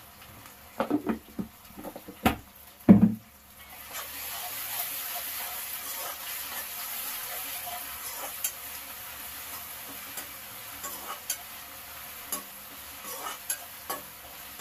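Metal spatula knocking and scraping against a steel kadai while onions and curry leaves are stirred in hot oil. There are a few sharp knocks in the first three seconds, the loudest near three seconds in. After that comes a steady sizzle of frying with occasional clicks of the spatula.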